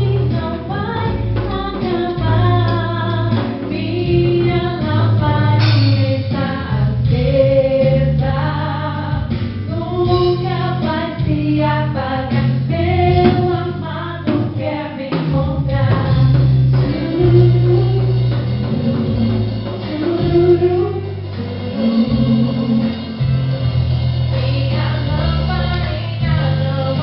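Background music: a song with singing over a steady bass line, in a gospel or Christian style.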